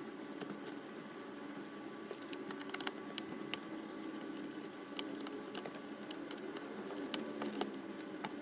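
Scattered small clicks and taps of a hand tool and screws against the car's plastic interior trim as the console screws are taken out, over a steady low hum.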